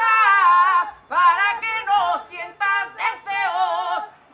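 A young man singing unaccompanied: several short phrases with brief breaks, the pitch wavering on the held notes.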